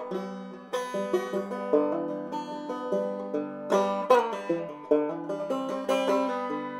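Background music played on plucked string instruments, a run of quick pitched notes.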